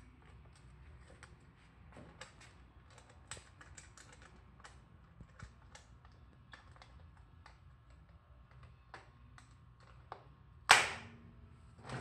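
Light, scattered clicks and taps from a black steel wood-stove chimney pipe being gripped and worked loose at its joints, with one loud knock near the end.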